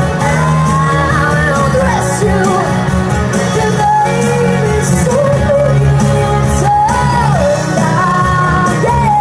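A female singer performing a pop-rock song into a microphone over a loud backing track, heard through a PA system in a large hall, with held and gliding sung notes over steady drums and bass.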